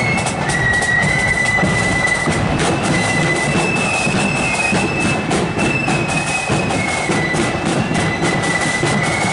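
Marching flute band playing a tune: massed flutes carry a high melody that steps up and down, over a regular beat.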